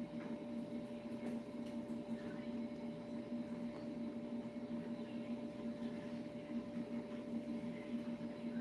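Steady low electrical hum from an appliance, with a few faint clicks over it.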